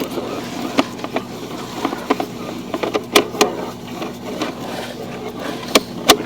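Sewer inspection camera equipment being worked: irregular sharp clicks and knocks, the loudest a pair a little after three seconds in and another pair near the end, over a steady low hum.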